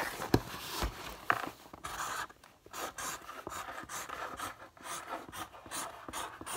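Marker pen writing on a cardboard box, a run of short strokes.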